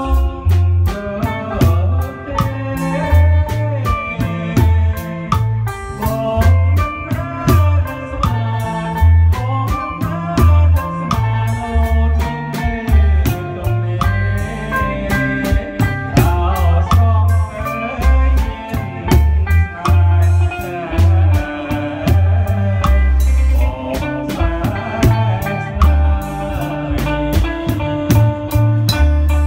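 Live Khmer ramkbach dance song played by a small band: electric guitar, bass guitar, keyboard and drum kit keep a steady beat while a man sings into a microphone.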